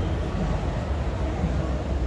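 Steady hubbub of a crowded exhibition hall: indistinct background voices over a low, even rumble.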